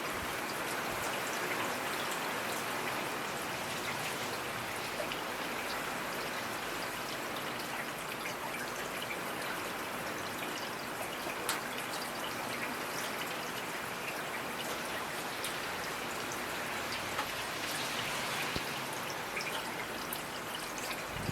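Steady rainfall, with many individual drops ticking sharply over an even hiss.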